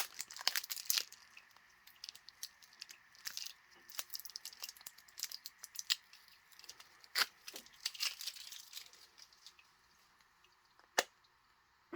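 Hands working at a plastic shipping vial and its packing: irregular crinkling and tearing with small sharp plastic clicks, dying away near the end apart from one last click.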